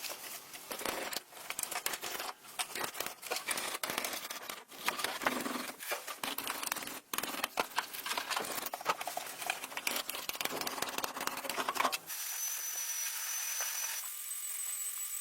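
Rapid, irregular scratching and crackling from hand work on material, which stops about twelve seconds in and gives way to a steady hiss.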